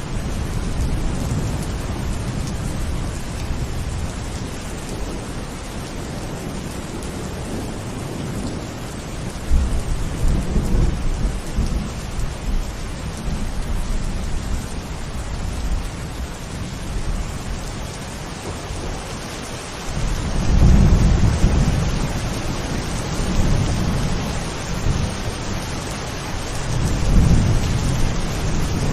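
Steady, heavy rain falling, with low rolling thunder rumbling three times: about a third of the way in, about two-thirds in, and near the end.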